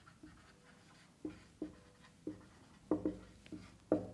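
Marker writing on a whiteboard: a string of short, sharp strokes and taps as letters are written, irregularly spaced, the loudest near the end.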